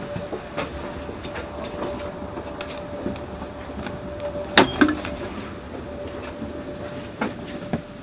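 Steady hum of a commuter train's carriage, with scattered small knocks and clicks. About four and a half seconds in comes one sharp clack as a paper ticket is stamped in the ticket validator.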